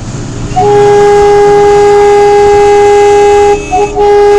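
Vehicle horn blowing one loud, steady tone: a long blast starting about half a second in, a brief stuttering double toot near the end, then another long blast.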